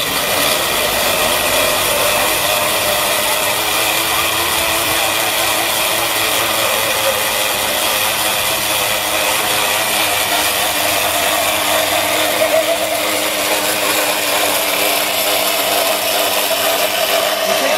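Blenders running steadily while blending fruit smoothies: a solar-powered electric blender and a pedal-powered bicycle blender going at once.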